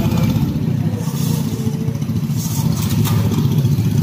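Several small go-kart engines running together in a steady, low, rapidly pulsing drone.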